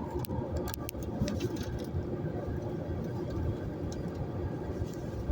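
Storm-force wind buffeting the microphone with a heavy low rumble. Several sharp clicks and rattles come in the first two seconds.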